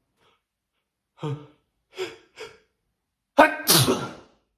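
A person's sneeze: three short voiced gasping inhales as it builds, then a loud, explosive sneeze about three and a half seconds in.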